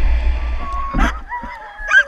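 Wind and the rush of a moving dog sled on the microphone. From about a second in, sled dogs whine and howl in drawn-out, wavering high calls.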